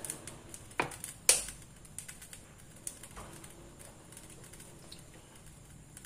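A few light, sharp clicks and taps, the loudest about a second in, over a faint steady background.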